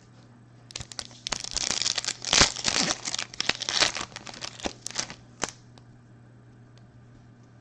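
Foil trading-card pack wrapper being torn open and crinkled by hand, a run of crackly rustling that stops about two seconds before the end.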